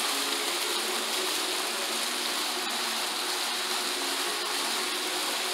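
Decorative fountain with several water jets splashing down into its pool: a steady rush of falling water.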